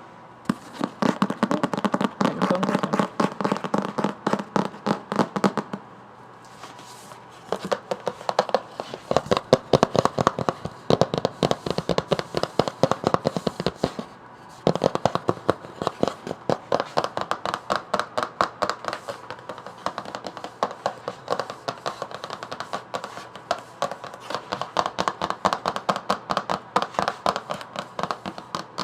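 Fingers tapping quickly on a book, in fast runs of sharp taps several a second, broken by short pauses about six seconds in and again about halfway through.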